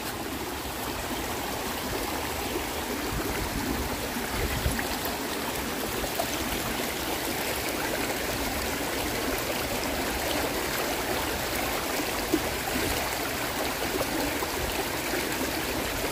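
Stream running steadily over rocks, heard close up, with a few faint knocks.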